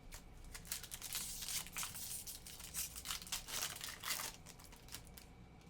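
Trading card pack wrappers and cards being handled: a run of crinkling and rustling for about four seconds, then it quietens.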